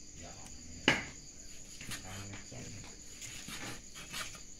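Large kitchen knife cutting cooked buffalo meat on a wooden chopping board: one sharp knock about a second in as the blade strikes the board, then several softer cuts. Crickets chirp steadily behind it.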